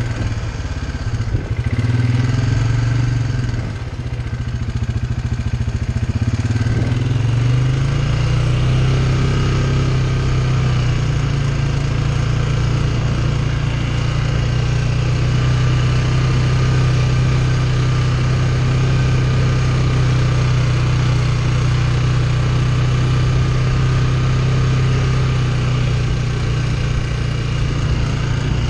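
ATV engine running under way, its note dipping and recovering a few times in the first seven seconds with changes of throttle, then holding steady.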